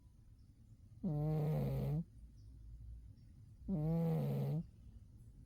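Domestic cat snoring in deep sleep: two pitched, even snores, each about a second long and about two and a half seconds apart.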